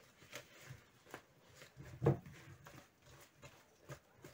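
Cake batter being stirred by hand in a plastic bowl, the utensil clicking and scraping irregularly against the bowl as the lumps are worked out, with one louder knock about two seconds in.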